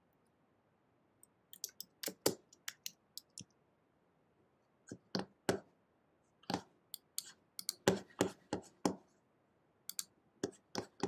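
Irregular clicks of a computer keyboard and mouse, in short clusters with brief pauses, as a search is typed in.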